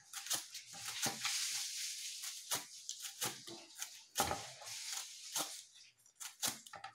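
Knife slicing through a raw bitter gourd held in the hand: short crisp cuts at an uneven pace of one or two a second.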